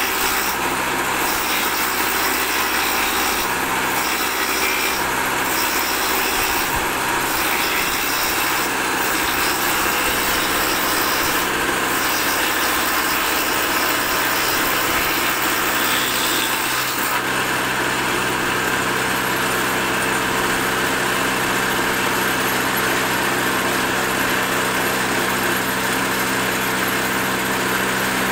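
Electric woodworking machine running steadily while a board is fed past its cutter, held down by a manual hold-down jig. The sound shifts to a fuller, steadier tone about seventeen seconds in.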